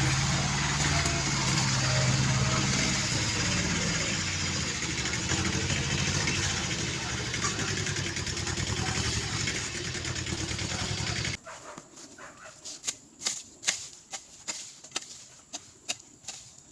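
An engine running steadily with a hiss over it, cutting off abruptly about eleven seconds in; scattered clicks and knocks follow.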